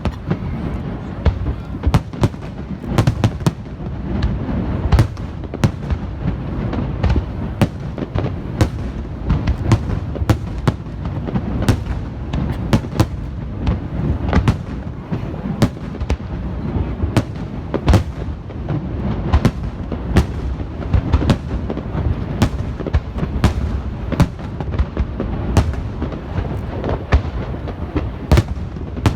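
Aerial fireworks bursting in rapid succession, sharp bangs several times a second over a continuous low rumble of echoing explosions.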